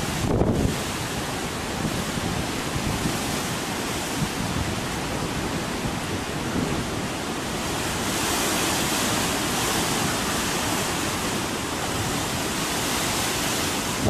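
Typhoon gale blowing and buffeting the microphone, a steady rushing noise with gusty low rumble. In the second half a louder hiss rises as vehicles pass on the wet road.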